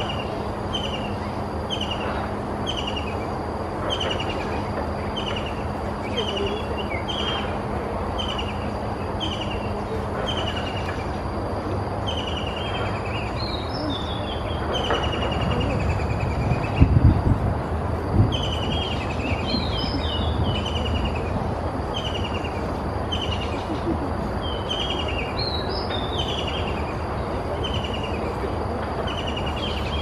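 White-throated kingfisher calling loudly: a steady run of short, falling notes, about three every two seconds, then several rapid descending whinnying trills. Over a steady background hiss, with a brief low rumble a little past the middle.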